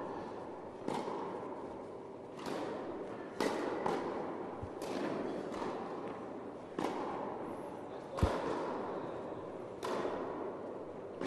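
Tennis ball struck by rackets and bouncing on an indoor court during a rally: a series of sharp pops about one to one and a half seconds apart, each ringing on in the echo of a large hall.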